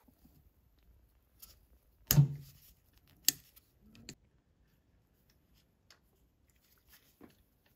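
Fuel injectors being handled and pushed into their seats on an individual-throttle-body intake: a few sharp clicks and knocks. The loudest is about two seconds in, followed by a sharper click about a second later and smaller ones after that.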